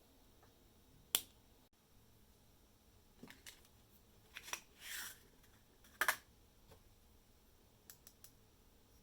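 Scattered sharp clicks and taps of small hard parts being handled, with a short scrape about five seconds in and a loud double click just after six seconds.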